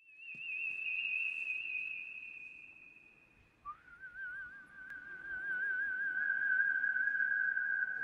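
A man whistling through pursed lips to call a horse: a long, high, warbling note, then after a brief break a lower note that slides up and holds with the same warble.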